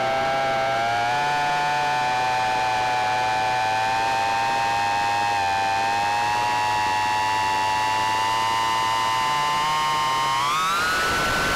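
Micro quadcopter's motors and propellers whining with a steady, slowly wavering pitch over a hiss. About ten seconds in the pitch rises sharply as the throttle is opened.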